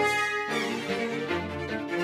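Orchestral cartoon score led by bowed strings, opening with a bright accented note and moving into held string notes.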